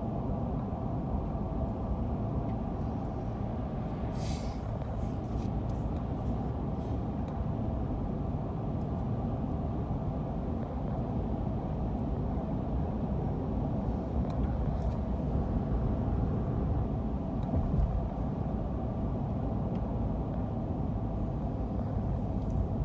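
Steady road and engine noise inside a moving car's cabin, with a brief hiss about four seconds in.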